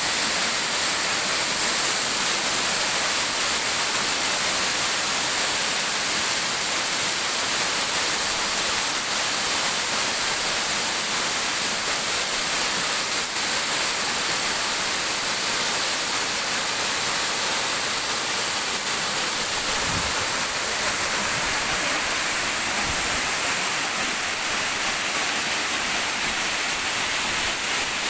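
Waterfall cascading over rocks: a steady, even rush of falling water.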